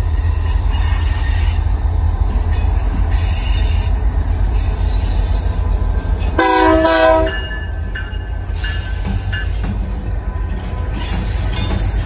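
BNSF EMD GP39-series diesel locomotives passing, their engines rumbling steadily, with one short locomotive horn blast of about a second a little past the middle, a chord of several tones.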